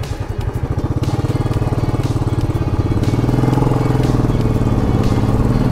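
Royal Enfield Classic 500's single-cylinder engine running steadily as the motorcycle is ridden, with an even, rapid pulse.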